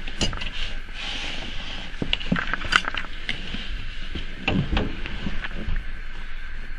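Rustling and handling noise: scattered clicks, scrapes and soft knocks over a steady hiss.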